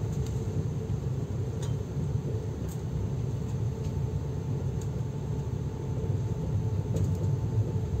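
Steady low rumble of a moving passenger train heard from inside the carriage, with a few faint clicks.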